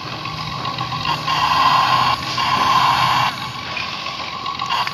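Small electric motor and plastic gears of a toy excavator whining as the arm and bucket move, in spurts that start and stop abruptly, loudest about one to three seconds in.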